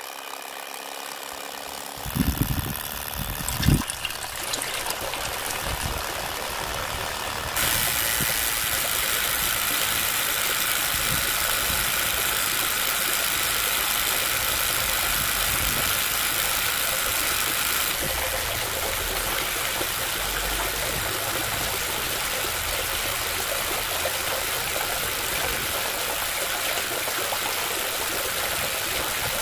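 Small DC motor whirring steadily as it turns a crank wheel that works the handle of a model hand pump, with two sharp knocks in the first few seconds.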